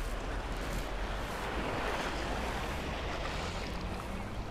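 Choppy sea water sloshing against a rocky shore, with wind on the microphone; a faint low hum comes in near the end.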